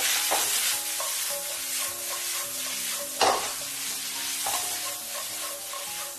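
Green beans and minced pork sizzling in a hot wok while being stir-fried over high heat, with a spatula scraping and turning them against the pan. The loudest scrape comes about three seconds in.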